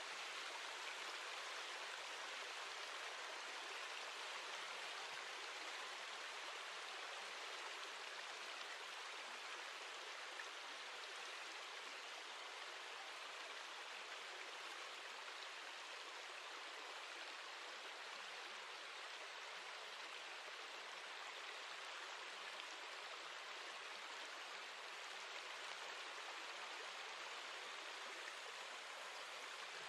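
Steady, even water ambience from a nature-sounds background track, with no tones, beats or distinct drops standing out.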